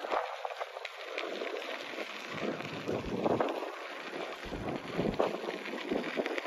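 Wind buffeting the microphone in uneven gusts, with low rumbling surges.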